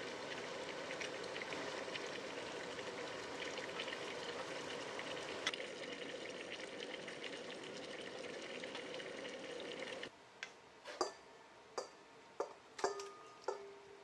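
Food sizzling in a pan, a steady crackling hiss. About ten seconds in it cuts off abruptly, and a few light clinks and taps of kitchen utensils follow, one ringing briefly.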